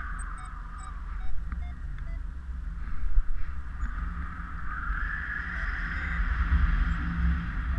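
Airflow of paraglider flight buffeting a GoPro's microphone: a low, uneven rumble with a hiss of rushing air that swells about five seconds in and eases near the end.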